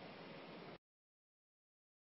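Faint steady hiss of room tone that cuts off to dead silence less than a second in.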